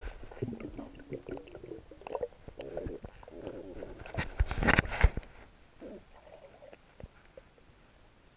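Muffled underwater sound of a swimmer moving close to a GoPro in its waterproof housing: gurgling water and bubbles, with a louder burst of water noise about four to five seconds in, then quieter.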